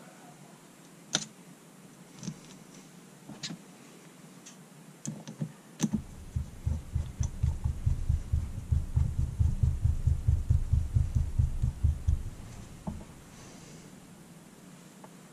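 A few light clicks of small metal carburetor parts being handled, then a screwdriver turning the top-cover screws into a Yamaha Grizzly ATV carburetor, giving a fast, even run of low knocks, about five a second, for some six seconds before it stops.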